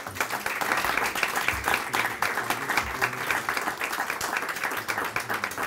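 Audience applauding, many people clapping at once at a steady level.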